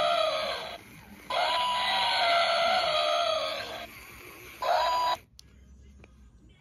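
Battery-powered walking plush elephant toy playing a recorded elephant trumpeting call through its small speaker, repeated in long, wavering calls. The sound cuts off abruptly about five seconds in.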